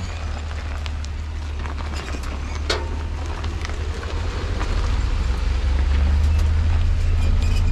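Pickup truck carrying a camper, driving slowly down a rocky dirt trail: a steady low rumble of engine and tyres, with scattered knocks and rattles from rocks and the load. The rumble grows louder about five seconds in.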